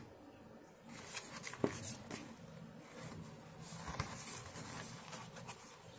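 Cardboard frozen-meal box handled and turned over in the hands: dry scuffing and rustling of the carton starting about a second in, with a sharp tap or click twice, the first about a second and a half in and the second near four seconds.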